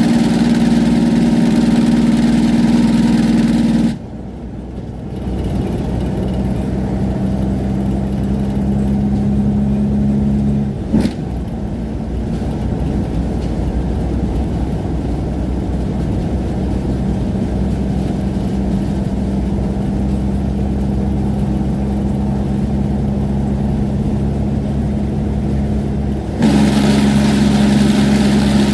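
Semi-truck diesel engine with its engine brake on, a loud steady drone through a repaired muffler while holding the truck back on a long downgrade. About four seconds in the brake cuts out abruptly and the engine runs quieter and steady, with a single sharp clack near the middle, until the engine brake comes back on loud near the end.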